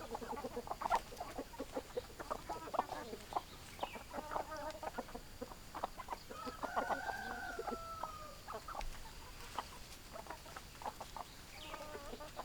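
Chickens clucking: many short, quick clucks, with one long drawn-out call about six seconds in that lasts about two seconds and slowly falls in pitch.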